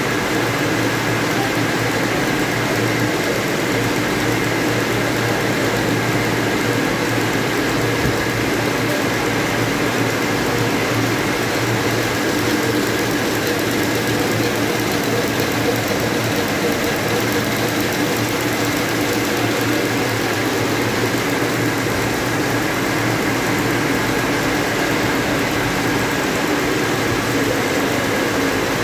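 High-speed needle looms running at full speed while weaving narrow webbing tape: a loud, steady machine noise with constant high tones over it and no let-up.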